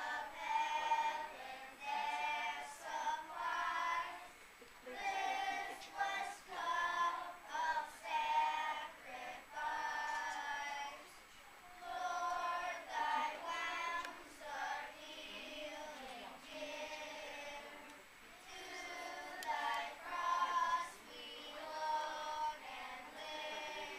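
Children's choir singing, in sung phrases with short breaks between them.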